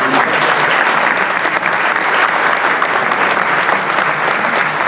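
A roomful of people applauding: dense, steady clapping.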